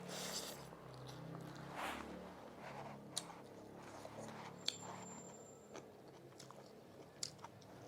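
A person chewing and biting food, with a few sharp, crisp clicks about three seconds in, near five seconds and near seven seconds.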